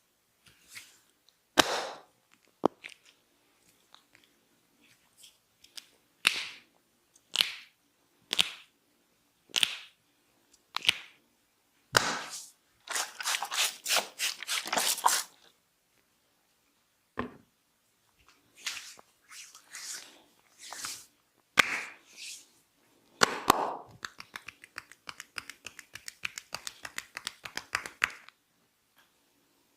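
Barber's head massage close to the microphone: hands rubbing and scratching through hair and scalp in separate swishing strokes, with two runs of quick repeated strokes and a few sharp cracks or slaps, the loudest about two seconds in and near twenty-two seconds.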